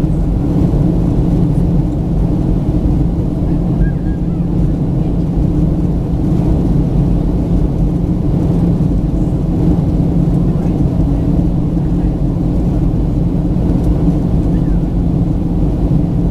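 Steady cabin noise inside a Boeing 737-900 during descent, heard from a window seat over the wing. The CFM56-7B engines and the airflow make a low, even rumble with a steady hum.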